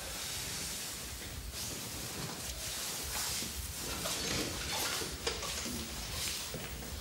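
Faint rustling and a few soft knocks of someone handling things in an office, over a steady hiss.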